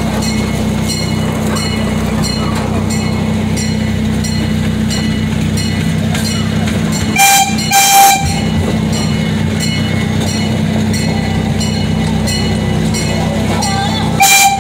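Miniature amusement train running, its engine humming steadily and its wheels ticking over the rail joints about twice a second. The horn sounds two short blasts about halfway through, the loudest sound, and blasts again right at the end.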